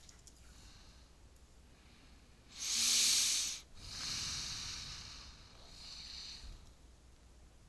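A person breathing close to the microphone: a loud breath about three seconds in, then a longer one that fades and a shorter, softer one.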